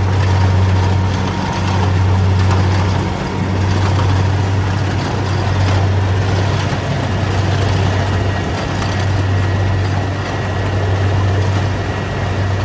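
Rice combine harvester running steadily, a continuous low engine drone under the noisy rush of its cutting and threshing machinery.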